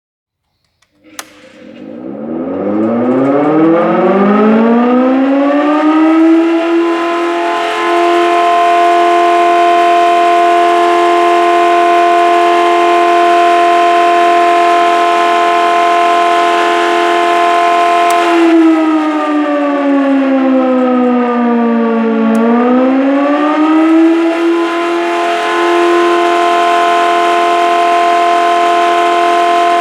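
Volunteer fire brigade's siren starting with a click, winding up from a low pitch to a steady high wail over about five seconds, then sagging in pitch and winding back up again around twenty seconds in.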